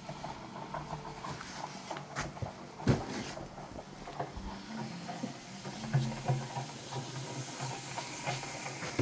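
Repair work on a slush machine: a low mechanical hum that comes and goes over a faint hiss, with a few sharp knocks and clicks.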